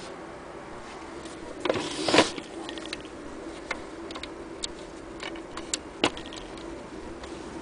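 A short clatter about two seconds in, then scattered light metal clicks, as a hand works the crank mechanism of a hand-cranked Singer 66K sewing machine. A faint steady hum runs underneath.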